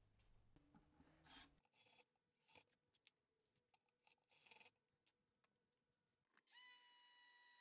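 Faint clicks and handling noises, then about six and a half seconds in a corded jigsaw's motor starts and runs with a steady high whine.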